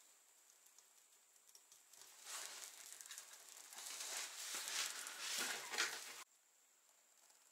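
Fire crackling in a small iron wood stove as freshly lit kindling catches: an irregular patter of sharp snaps that starts about two seconds in, grows louder, and cuts off suddenly near the end.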